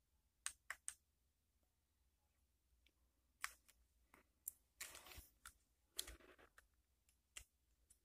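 Faint, scattered clicks and brief rustling from a small action camera being handled: its buttons pressed and its plastic body turned over in the fingers.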